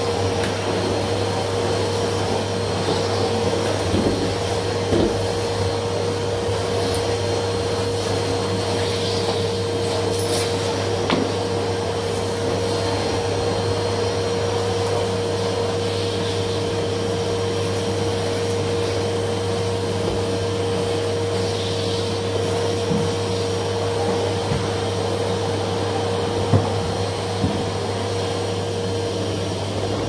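Numatic Hetty cylinder vacuum cleaner running steadily with a constant hum. There are a few brief knocks, two close together near the end.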